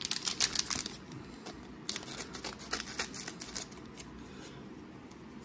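Scissors snipping through plastic trading-card pack wrappers, with crinkling as the packs are handled. Quick runs of sharp snips and rustles come in the first second and again from about two to three and a half seconds in.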